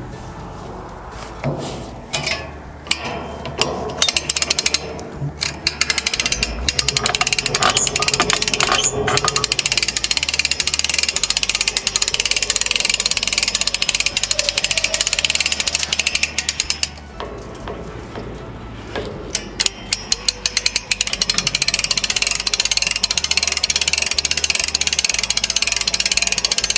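Hand-crank winch on a Creekbank ATV 30 dump trailer being turned to work the dump box, its ratchet pawl clicking fast in long runs, with a short break about two-thirds of the way through.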